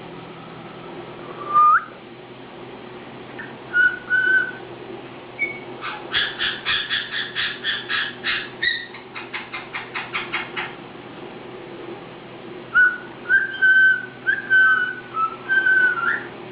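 Pet caique parrot whistling. It gives a rising whistle, then a few short whistled notes, then two fast runs of rapidly repeated notes in the middle, and ends on a string of whistled phrases that finish on an upward glide.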